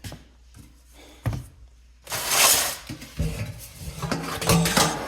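Clicking and rattling of objects being handled, with a sharp click about a second in and a loud rushing burst about two seconds in.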